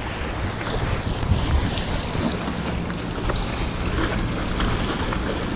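Wind buffeting the microphone with a low rumble, over waves washing and splashing against shoreline boulders.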